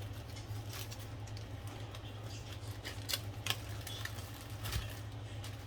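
Scattered light clicks and taps from handling food and packaging on a kitchen counter, over a steady low hum.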